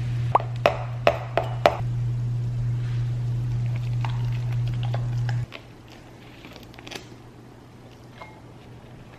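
Steady low electric hum of a running kitchen appliance, cutting off suddenly about five and a half seconds in. Five or six sharp clicks and taps of dishes or utensils ring out in the first two seconds, with a few faint ticks later.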